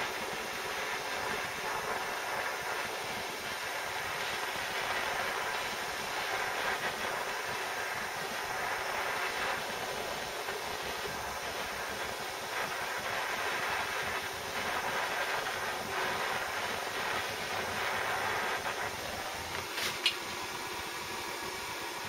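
Handheld butane blowtorch flame burning with a steady hiss as it heats a lead fishing weight. About twenty seconds in there is a sharp click, and the hiss becomes a little quieter.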